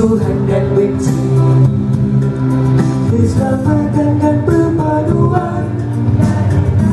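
A male nasyid vocal group singing in harmony into handheld microphones, with several voices on different notes at once.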